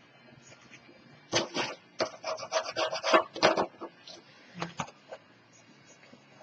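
Bone folder rubbing paper strips down onto cardboard: a quick run of scraping strokes, about four a second, lasting a little over two seconds, followed a moment later by a single tap.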